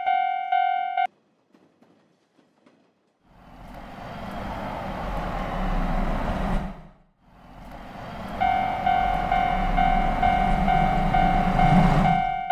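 Japanese railroad crossing alarm ringing its rapid repeated "kan-kan" ding, cutting off suddenly about a second in. After a short quiet, a train passes with a steady rumble of wheels on rails. Over the last few seconds the crossing alarm rings again over the passing train.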